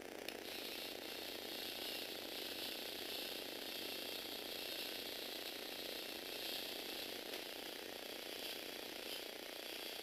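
Small electric motor and plastic gear train of a Lego Technic motorbike model running, a steady gear whir that starts with a click about a third of a second in.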